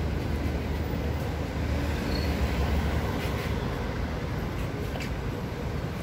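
Outdoor street ambience: a steady low rumble, like distant traffic, with a few faint clicks about five seconds in.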